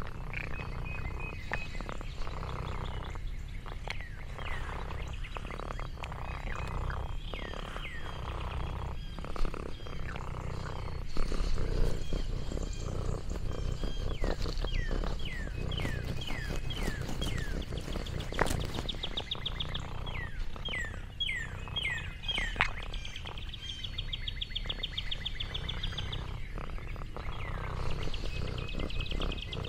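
Songbirds calling: many short chirps sliding down in pitch, with a rapid trill about three-quarters of the way through, over a low steady rumble.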